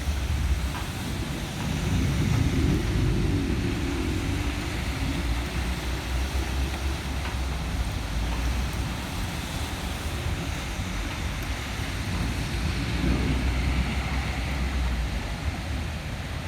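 Thunderstorm downpour with wind: steady rain hiss over a continuous low rumble.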